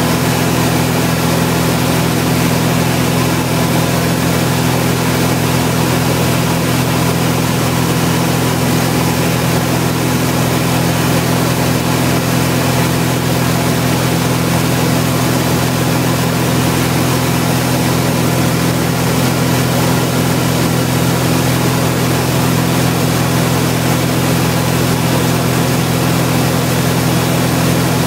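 Four-cylinder light-aircraft piston engine and propeller running steadily at cruise power, about 2540 rpm, heard inside the cabin, with the mixture leaned to run lean of peak.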